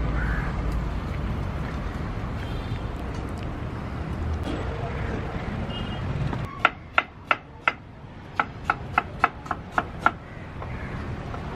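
A knife chopping on a cutting board: after a stretch of low steady background noise, two quick runs of sharp strokes about three a second, eleven strokes in all, starting a little past halfway.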